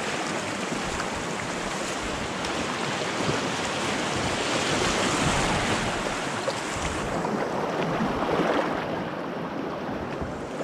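Rushing creek whitewater, a steady roar of rapids. It grows a little duller in the last few seconds.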